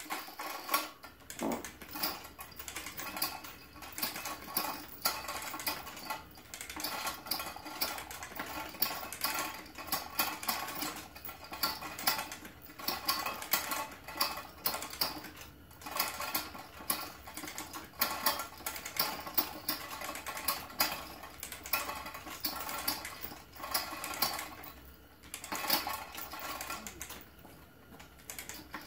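Manual chain hoist being worked by hand: a fast, continuous clicking of the hoist's ratchet and the rattle of chain running through it, pausing briefly twice near the end.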